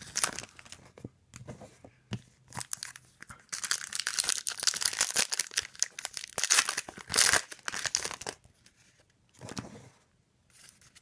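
Trading card pack wrappers being torn open and crinkled, with the cards shuffled and handled; the rustling is densest in the middle and thins out toward the end.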